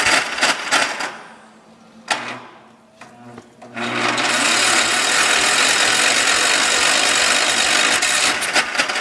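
John Deere 140's Kohler engine being cranked by its starter on a hard cold start, not catching: a few short cranking bursts and clicks in the first seconds, then a steady mechanical whir of continuous cranking from about four seconds in, stopping near the end.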